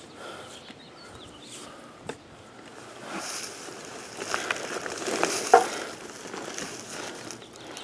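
Draw knife shaving rough orange-tree wood: a rasping scrape lasting about three seconds from around three seconds in, with a few sharp clicks, the loudest a little past the middle.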